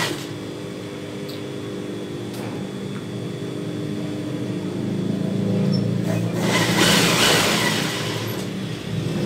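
Steady low motor hum, with a short rustle of noise about six and a half seconds in.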